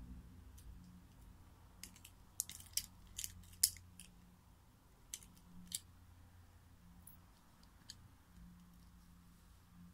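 Light clinks of a jadeite cabochon necklace's metal bezel settings and chain links knocking together as it is handled and twisted, in a quick cluster about two to four seconds in and a few more scattered later.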